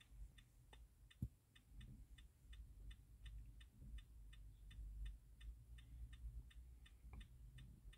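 Faint, steady ticking, about three even ticks a second, over a low hum, with one soft knock about a second in.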